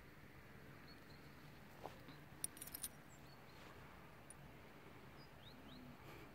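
Near silence: faint outdoor background, with a brief cluster of light clicks about two and a half seconds in and a few faint, short high chirps.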